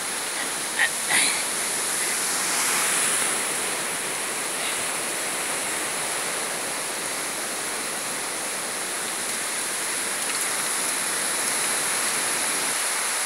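Steady, even rush of falling and running water from a rain-swollen stream pouring into a narrow rock grotto.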